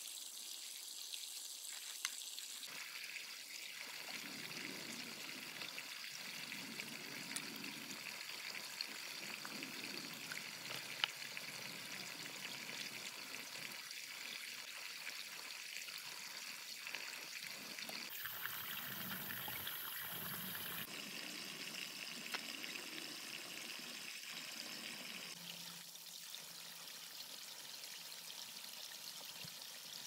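Running water, a steady trickling, splashing flow, with a few small knocks. Its tone changes abruptly a few times.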